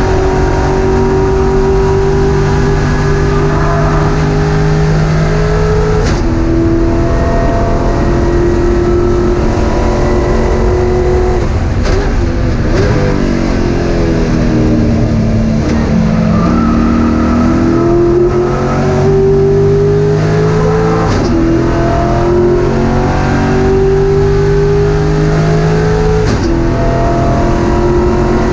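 Race car engine at high revs, heard from inside the cockpit. The pitch climbs through the gears and drops sharply at each upshift, about 6, 12, 21 and 26 seconds in. Between about 13 and 16 seconds in it falls steadily as the car brakes and downshifts, then climbs again.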